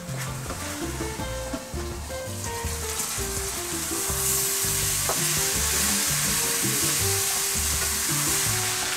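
Rice, sausage and chicken sizzling in a hot stainless steel skillet while being stirred with a wooden spatula, with a few scrapes near the start; the sizzle grows louder about three seconds in. Background music with a bass line plays underneath.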